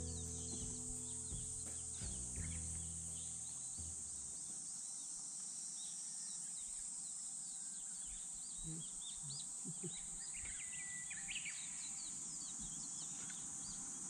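Wild birds chirping and singing over a steady high insect buzz, with a louder run of bird calls about two-thirds of the way through. Background music with held low notes plays at first and stops about four seconds in.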